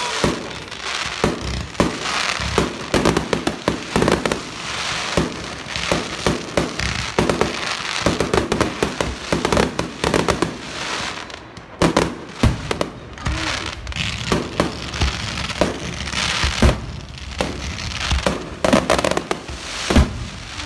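Fireworks display: a dense, continuous run of bangs and crackles as aerial shells burst, with hardly a gap.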